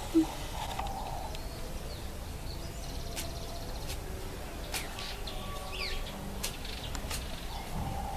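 Birds giving a few short, high chirps, one sliding sharply down in pitch, over steady outdoor background noise; a brief low thump just after the start is the loudest sound.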